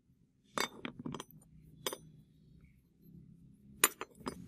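Metal pipe-cutter parts clinking and knocking against each other and the concrete floor as they are handled and set down: a quick cluster of sharp clinks about half a second in, another a little before two seconds, and a loud clink followed by two lighter ones near the end.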